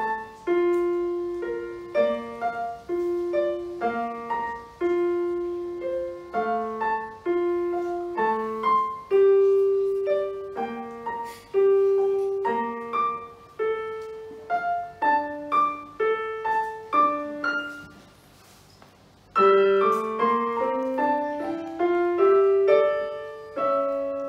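Digital piano playing a slow, simple melody, mostly one or two notes at a time. About 18 seconds in it stops for a second or so, then resumes with a quicker rising run of notes.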